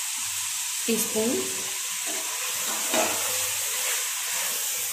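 Onions, tomatoes and mint sizzling steadily as they fry in an aluminium pressure cooker, while a steel spoon stirs through them and scrapes once against the pot a little before the end.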